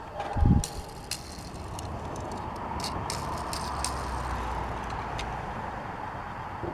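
A thump, then a die-cast Hot Wheels toy car's small wheels rolling steadily across a hard surface: a continuous rolling rumble with a few small clicks, fading near the end. The wheels roll freely and smoothly.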